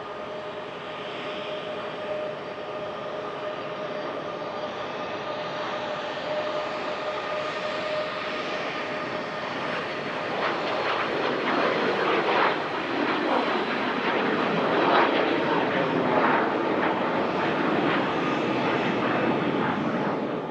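Pilatus PC-24 twin-turbofan business jet with its Williams FJ44 engines whining steadily, then a broad jet roar building to its loudest about two-thirds of the way in as the jet passes close by. The sound cuts off abruptly at the end.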